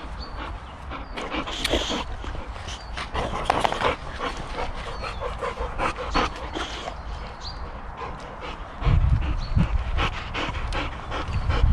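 Two boxer dogs panting hard after play, with scattered clicks and scuffs. A louder low rumble sets in about nine seconds in.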